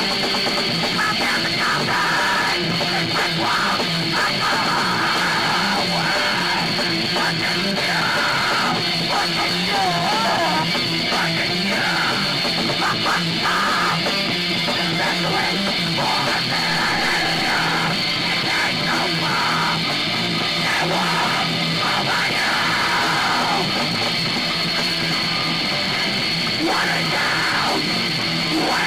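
Punk band playing live: loud electric guitars and drums, played without a break.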